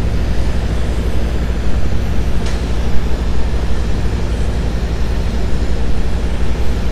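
Steady low mechanical drone with a constant hum, like a motor or engine running, and a single sharp click about two and a half seconds in.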